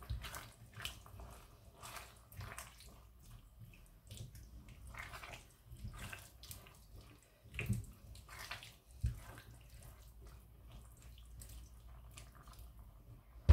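A spoon stirring a watery chickpea and potato curry in a pot, with irregular wet splashing and slopping, and two louder knocks of the spoon against the pan near the middle.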